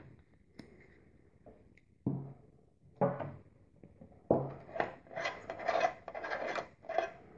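Three knocks of containers set down on a table, then a run of short grating rubs as the screw cap of a metal can of denatured alcohol is twisted open.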